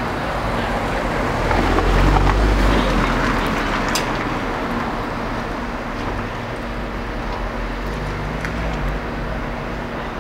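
Street traffic noise, with a passing vehicle's low rumble swelling about two seconds in and slowly fading.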